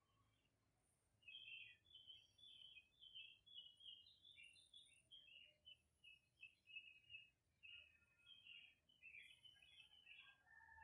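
Faint birds chirping: a rapid, continuous run of short high notes that starts about a second in.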